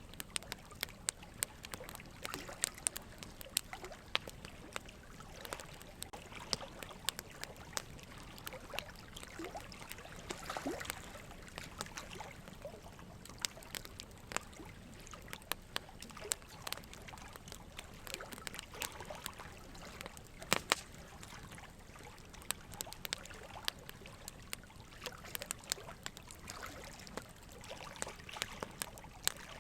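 Soft background ambience: a low steady hiss dotted with many irregular small clicks and crackles, with no narration.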